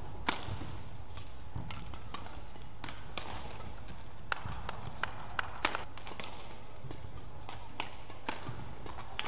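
Badminton rally: sharp, irregular racket strikes on the shuttlecock, the loudest about a third of a second in and a quick cluster around five to six seconds, with footfalls on the court over a steady low hum in the hall.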